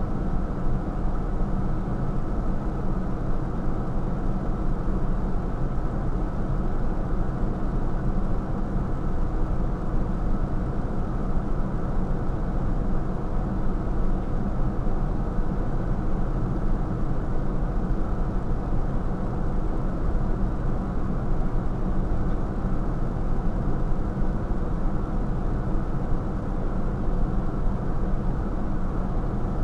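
Fire engine idling: a steady, unchanging low engine drone with an even hum.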